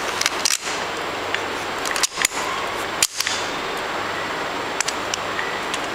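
A few light clicks and knocks of a bolt and metal parts being handled as the bolt is passed through, over a steady hiss.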